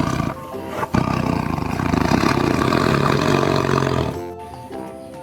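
A tiger roaring: one long, rough roar from about a second in, lasting about three seconds. Light background music plays under it and is left on its own near the end.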